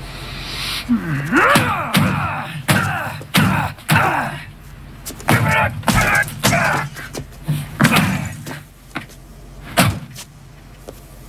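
A man pounding an automated teller machine with his fist: a series of hard bangs, about seven loud ones, with angry yelling and grunts between the blows.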